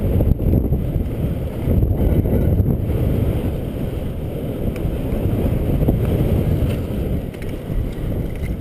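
Wind buffeting a camera microphone: a steady, heavy low rumble with no distinct events, easing slightly near the end.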